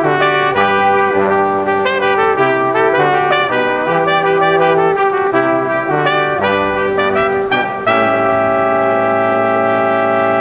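Brass band music: a tune of moving notes over a bass line, which settles onto one long held chord about eight seconds in.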